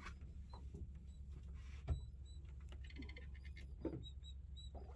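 Faint short, high chirps of small birds, repeating every half second or so, over a low steady rumble, with a few soft knocks about two seconds apart.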